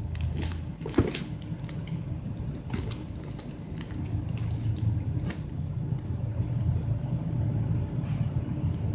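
Hands handling a plastic-wrapped cardboard box: scattered crinkles and taps of the shrink wrap, with a sharper knock about a second in, over a steady low rumble.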